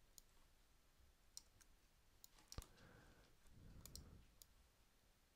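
Faint computer mouse clicks, about seven or eight single clicks scattered unevenly, over quiet room tone.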